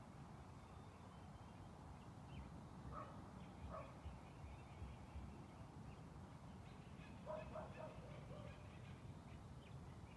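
Faint forest ambience: a low steady rumble with a few short, distant animal calls, two about three seconds in and a cluster around seven seconds in, and faint high bird chirps scattered through the second half.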